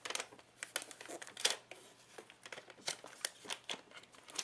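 Thin clear plastic protective wrap crinkling in irregular, faint crackles as it is worked off a new Apple iPad.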